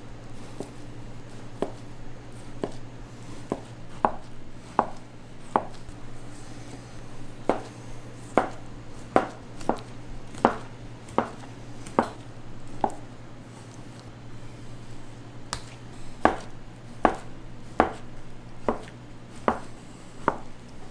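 Knife chopping on a cutting board, about one stroke a second with a short pause midway, over a steady low hum.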